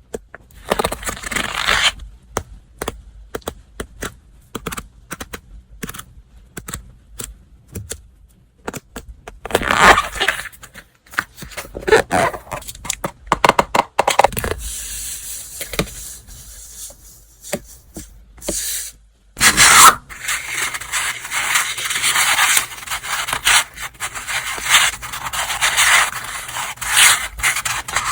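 Paper and packaging being handled and unwrapped: rustling, scraping and rubbing, with scattered sharp taps and clicks. Sparse clicks come first, then longer stretches of dense rustling.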